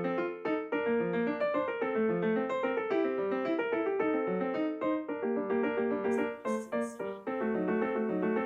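Background music: a light, silent-film-style ragtime piano piece with quick, bouncing notes.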